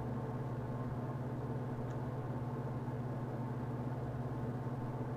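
Steady low machine hum, unchanging, with no other sound standing out.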